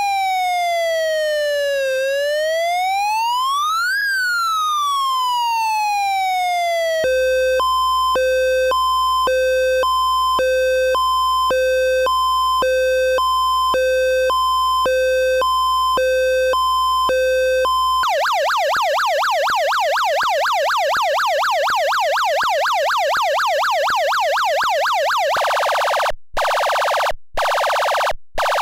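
Siren tones from a Wolo 345 Animal House electronic car horn. First a slow wail that falls, climbs again and falls (fire siren). Then a two-tone hi-lo ambulance siren alternating about once a second, then a fast up-and-down warble, and near the end a rapid machine-gun rattle broken by short gaps.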